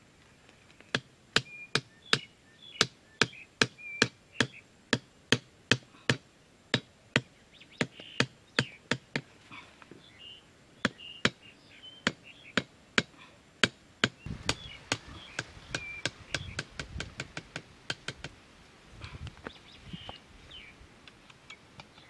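Wooden stakes being driven into the ground with a hatchet: a long run of sharp knocks, about two or three a second, giving way past the middle to quicker, lighter taps. Birds chirp in the background.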